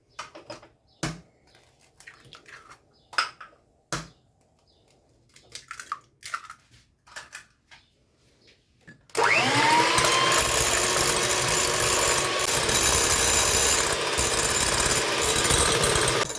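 A few sharp knocks and taps as eggs are cracked into a bowl. About nine seconds in, an electric mixer starts suddenly, whining up to speed, and then runs loud and steady as it beats the eggs.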